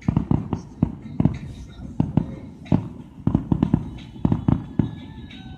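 Fireworks going off in a rapid, irregular string of sharp cracks and bangs, several a second.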